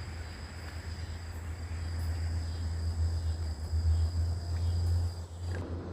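Insects trilling two steady high notes over a low steady rumble; the trilling cuts off near the end.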